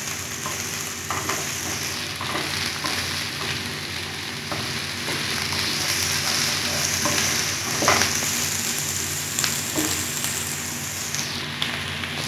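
Chopped onion and green capsicum sizzling in hot oil in a non-stick kadai, stirred with a wooden spatula that scrapes and knocks against the pan now and then, most sharply about eight seconds in.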